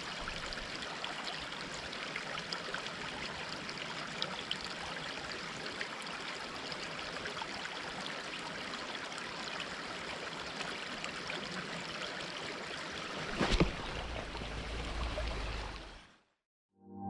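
River water running steadily over stones, an even rushing hiss. A sharp knock comes near the end, followed by a low rumble for a couple of seconds.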